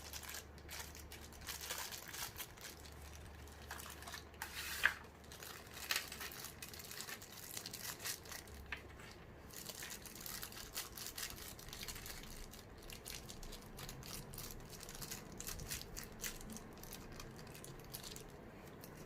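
Packaging crinkling and rustling as it is handled, with scattered light clicks and taps.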